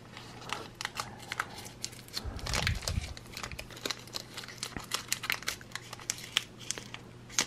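Foil Pokémon TCG booster pack (Lost Thunder) crinkling and crackling as its sealed seam is pried open with a thin wooden stick, in a rapid, irregular run of small crackles and clicks.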